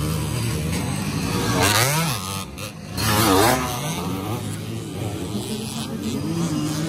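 Dirt bike engines running, revving up and back down twice, about two and three seconds in.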